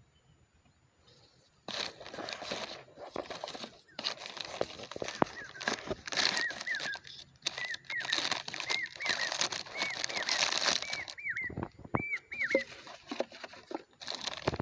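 Crinkling and crackling of plastic bottles and a plastic bag being handled as litter is gathered, starting about two seconds in and coming in bouts. Through the middle, a bird gives a string of short, high chirps.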